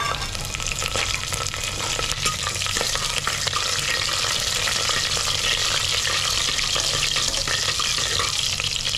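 Hot oil sizzling and crackling in a steel pressure cooker as a tempering of dried red chillies, curry leaves, cumin and mustard seeds fries, stirred with a steel ladle. The sizzle holds steady throughout.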